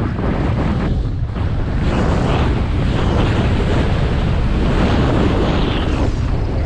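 Wind buffeting the microphone of a skier's head-mounted camera during a fast downhill run, with the hiss of skis sliding over snow swelling and fading from turn to turn.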